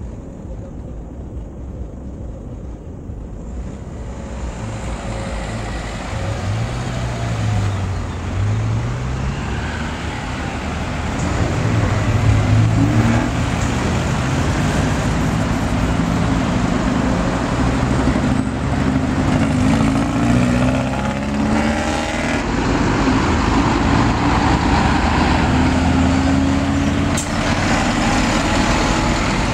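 Road traffic passing close by: cars and then a semi-trailer lorry drive past, their engine notes rising and falling as each one goes by. The noise builds after the first few seconds and stays loud through the second half.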